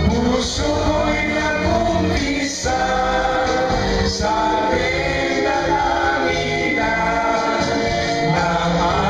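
A group of men singing together into a microphone over backing music, holding long notes.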